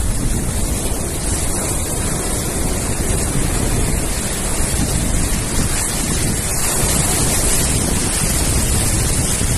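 Sea surf and wind buffeting the microphone: a loud, steady rushing noise with a deep rumble underneath.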